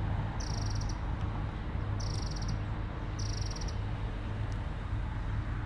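An insect trilling in three short, high bursts, each about half a second long, over a steady outdoor background rush.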